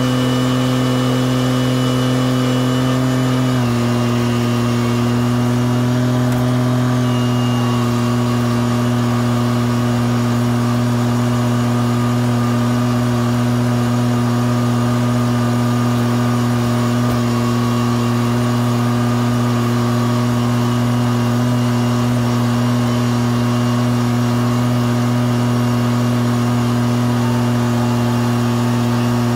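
Riding mower engine running steadily at working speed; its pitch dips slightly about three and a half seconds in, then holds.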